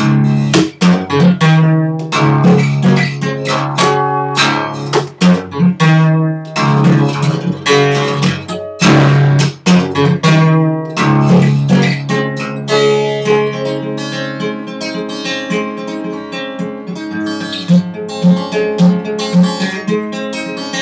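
Solo acoustic guitar: hard-strummed chords over strong bass notes, easing after about thirteen seconds into quieter picked notes.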